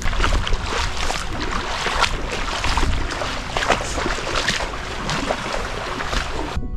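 Shallow seawater sloshing and splashing while wading through it, with wind rumbling on the microphone; it cuts off suddenly near the end.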